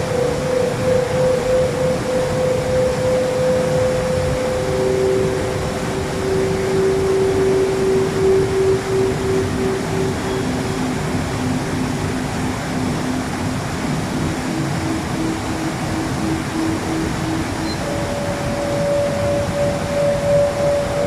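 Waterfall rushing steadily, with long, pure euphone tones held over it, several seconds each and overlapping: a high tone at the start, a lower one from about five seconds in, lower still near the middle, then a mid tone and a higher one towards the end.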